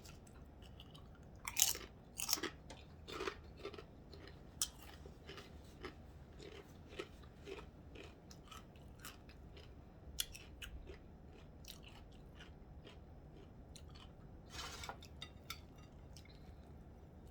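Close-up chewing and crunching of food, a mouth eating with crisp clicky crunches. The louder crunches come about two seconds in and again near the end, with softer chewing clicks between.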